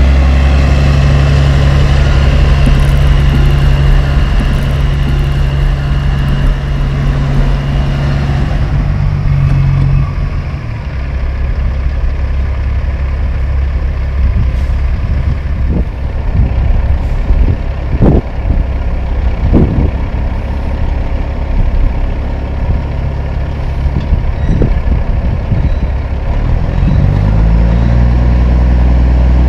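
Heavy diesel engine of a CAT-powered Kenworth T800H dump truck running steadily, then, after a change in the scene, a rougher stretch with a few sharp knocks in the middle and the engine revving up near the end.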